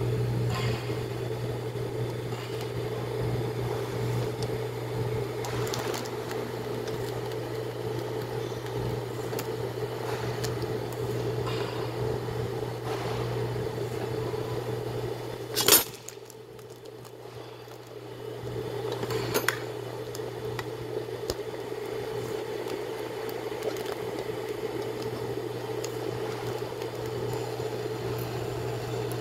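Hauscook FCH-D220 instant ramen cooker running with a steady electric hum while the broth simmers with faint crackles. About halfway through there is a sharp click and the hum drops out for a couple of seconds, then comes back with another click, as the cooker cycles its heating.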